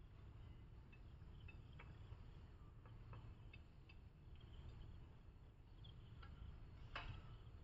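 Near silence: faint outdoor ambience with a low rumble, scattered faint chirps and ticks, and one sharper click about seven seconds in.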